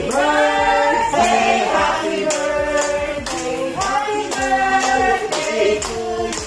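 Several voices singing a song in long held notes, with hand claps keeping time.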